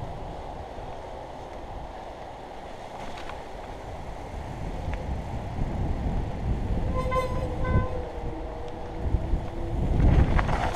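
Mountain bike riding down a dirt forest trail: tyres rumbling over dirt and stones, with wind on the helmet camera's microphone. About seven seconds in, two short high brake squeals, and a louder burst of rumble near the end.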